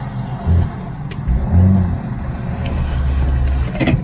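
Jeep engine rumbling at low speed and being revved in short bursts, then held higher for about a second, as the vehicle works over off-road ground. A single sharp knock near the end.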